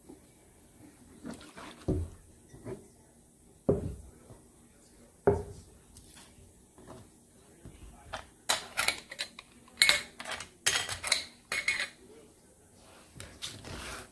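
Kitchen items being handled on a plastic cutting board: three dull knocks as things are set down, then a quick run of sharp metal clinks as mason jar lids and bands are gathered up and stacked.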